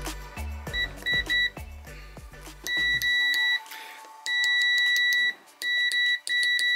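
Multimeter continuity tester beeping as the probes touch points on a freshly soldered board: a few short beeps, then several longer, steady high beeps. The beep means the meter finds a connection where there should be none, an unwanted short between those points. Background music plays under the first three seconds.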